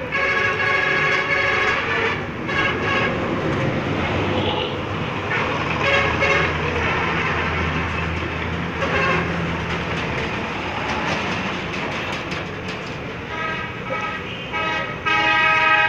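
Vehicle horns honking repeatedly over the steady rumble of passing road traffic, with longer horn blasts near the start and near the end.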